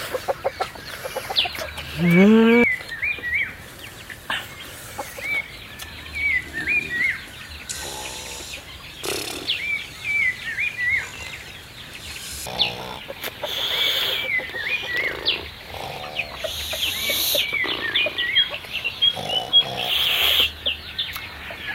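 Birds calling: a short high chirping phrase that dips and rises, repeated every second or so. About two seconds in comes one loud animal call rising sharply in pitch, and other scattered animal calls follow.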